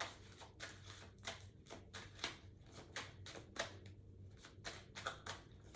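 Tarot cards being shuffled and handled: a run of soft, irregular card clicks and flicks, several a second.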